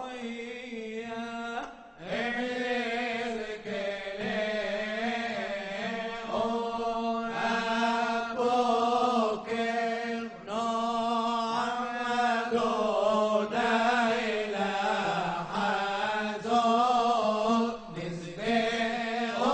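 Male cantor singing a bakashot piyyut in a long, ornamented line that bends up and down with brief breaks, over a steady held low note beneath.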